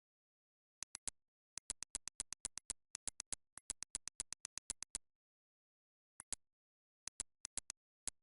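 Sharp, identical clicks in quick runs of about four a second, with dead silence between the runs. The clicks start about a second in, stop at about five seconds, and come back briefly near six seconds and again near the end.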